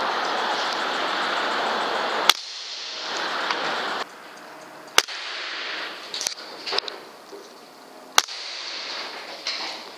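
Three sharp shots from a PCP air rifle, about three seconds apart, over a steady rushing background noise.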